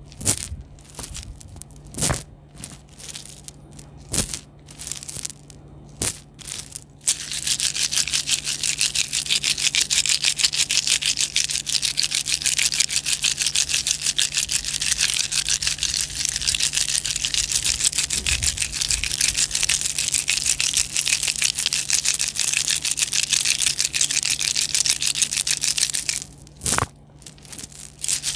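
ASMR crackling trigger: a few separate sharp cracks about two seconds apart, then from about seven seconds in a dense, continuous high-pitched crackle, broken once by a single crack near the end.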